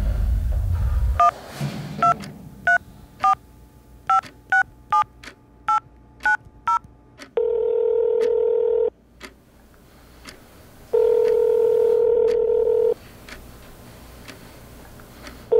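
A low rumble cuts off about a second in. A phone keypad then sounds about ten short dialing tones over some six seconds, followed by two long ringback tones with a pause between them, and a third starting at the end: a call being dialed and ringing at the other end.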